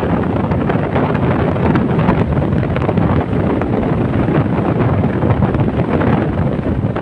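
Wind buffeting the microphone at the open window of a moving car, over a steady rush of tyre and road noise.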